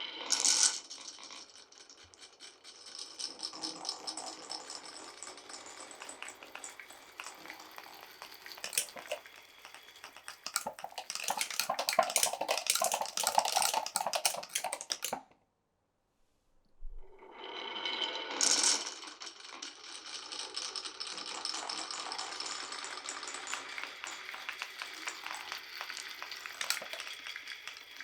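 Marbles rolling and clattering down a wooden marble run, a steady stream of small clicks and rattles that thickens into rapid clicking before cutting off abruptly about fifteen seconds in. After a second or so of silence the rolling and clicking start again.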